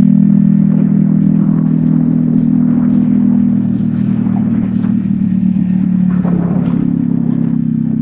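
Yamaha XSR155's 155 cc single-cylinder engine running steadily through a DIY exhaust while riding. The level eases slightly about three and a half seconds in, and light clatter from the rough road comes in toward the end.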